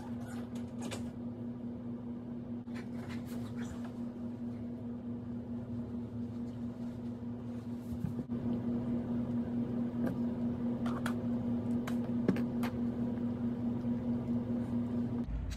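A steady low hum with light crinkles and clicks from hands rolling a hemp wrap. The hum cuts off near the end.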